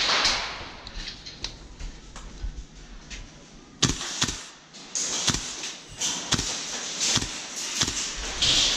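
A string of sharp, irregular cracks and knocks, one or two a second, beginning about four seconds in, during an airsoft skirmish. A short hiss sounds right at the start.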